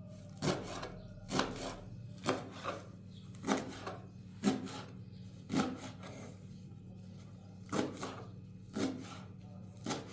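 About nine short scraping strokes against wood, roughly one a second, over a steady low hum.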